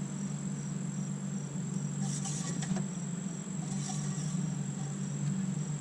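Insects chirping in an even, repeating rhythm over a steady low hum, with a few light clicks about two seconds in.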